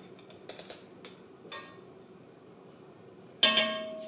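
Light clinks and taps of a metal measuring spoon against small glass spice jars, then one loud sharp clink about three and a half seconds in that keeps ringing.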